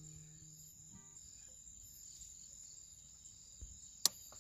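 Crickets trilling steadily, a constant high-pitched chirring. The last notes of background music fade out about a second in, and a single sharp click sounds near the end.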